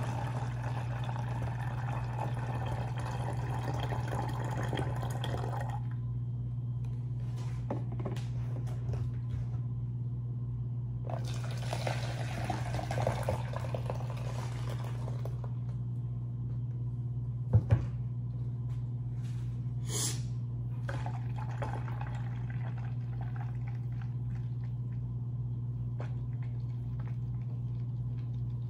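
Watermelon juice poured from a butter tub into a bottle, in two pours of several seconds each with a pause between. A sharp double knock after the second pour is the loudest sound, over a steady low hum.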